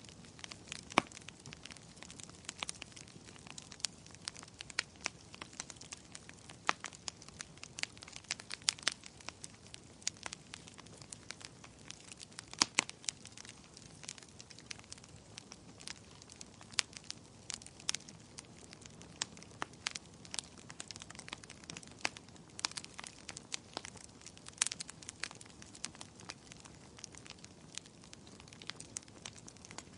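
Wood fire crackling: irregular sharp pops and snaps, several a second, over a faint steady hiss.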